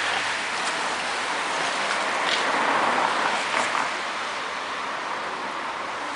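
A pack of racing bicycles sweeping past, a steady hiss of tyres on the road that swells about two seconds in as the riders pass close and then eases off.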